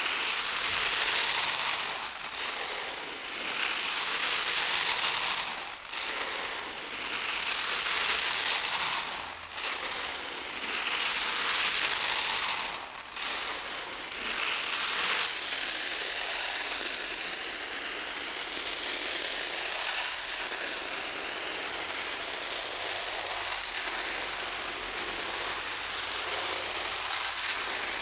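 Rice grains pouring in a thin stream from a swinging cone pendulum onto paper: a continuous grainy hiss that swells and fades every three to four seconds as the cone swings. About halfway through the hiss turns brighter and higher as the grains fall onto a sheet of paper held under the stream.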